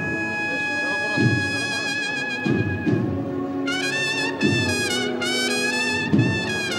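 Procession band playing a slow Holy Week march. The brass holds long steady notes, then takes up a vibrato melody about four seconds in, over slow, regular bass drum beats.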